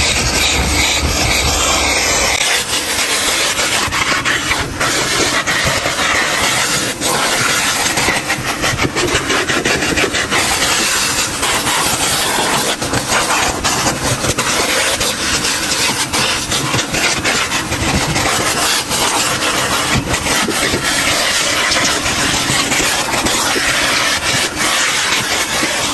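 Coin-operated car-wash vacuum running, its hose nozzle drawn over a car's carpet floor mat and sucking up sand and grit, which crackles and rattles through the hose.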